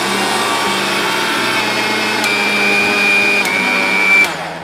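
Sahara mixer grinder's motor running at full speed, grinding granulated sugar into fine powder in its small stainless-steel dry-grinding jar, with a steady whine over the noise. It is switched off near the end and winds down.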